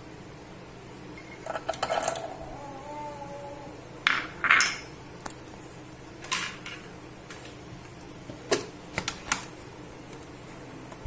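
Roasted almonds tipped into the steel jar of a mixer grinder, clattering against the metal in a few short bursts, followed by clicks and knocks as the plastic lid is fitted onto the jar.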